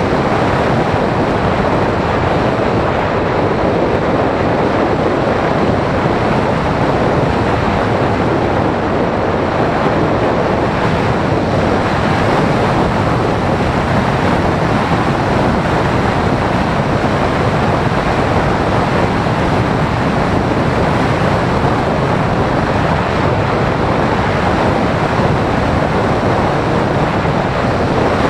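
Steady rush of wind and airflow over a model glider's onboard camera microphone in flight, with no motor tone heard.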